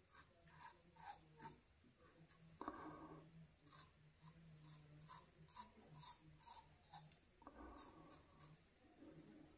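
Faint scraping of a safety razor cutting lathered stubble on the upper lip in many short, light strokes, with two louder scrapes about three seconds and eight seconds in.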